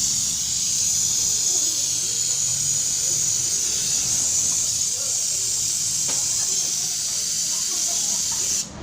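A steady, strong hiss of a pressurised spray or air jet, as used in cleaning a car engine's intake and throttle body during a tune-up. It runs without a break and cuts off suddenly near the end.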